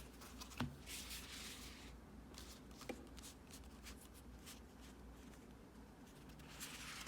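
An oracle card deck being shuffled by hand: faint, soft card sounds with a few light clicks.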